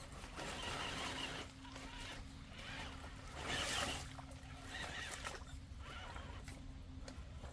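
Electric RC rock crawler wading through a shallow creek: water splashing and sloshing around it in uneven surges, over a steady low whine from its brushless motor.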